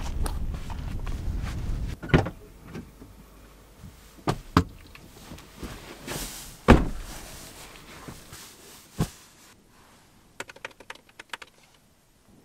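Knocks and thumps of a Toyota Sequoia's doors and the gear in its cargo bed being handled, the loudest a single heavy thud about halfway through. Near the end, a short quick run of laptop keyboard clicks.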